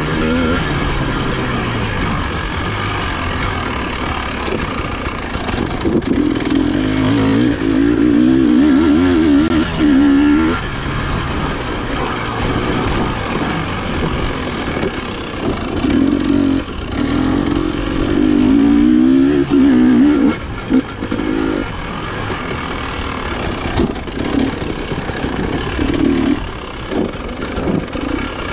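Off-road dirt bike engine being ridden on a dirt trail. The engine pitch rises and falls with the throttle, and it is loudest during two long pulls, about six to ten seconds and sixteen to twenty seconds in.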